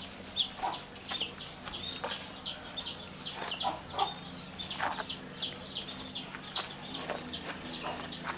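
A bird chirping steadily: short, high, falling chirps repeated about three times a second.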